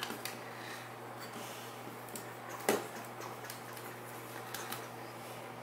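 Quiet handling of plastic toy figures: faint clicks over a steady low hum, with one short, louder sound about halfway through.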